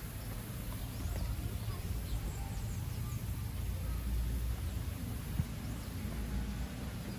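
Garden ambience: faint, brief bird chirps over a steady low rumble, with a single sharp click a little past the middle.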